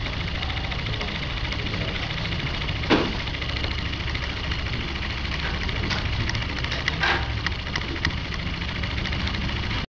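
Homemade DC electric motor spinning steadily with a continuous whirring buzz, a sharp click about three seconds in and another about seven seconds in.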